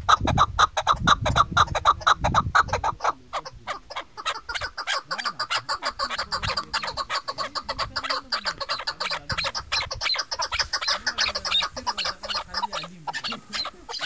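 Female chukar partridge calling, a rapid run of clucking notes. The notes are louder over about the first three seconds, then come quicker and softer.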